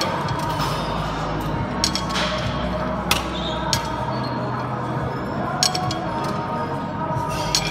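Metal weights on a cable machine's weight stack clinking sharply several times, about every two seconds, as the stack is lifted and set down during single-arm cable raises. Music plays in the background.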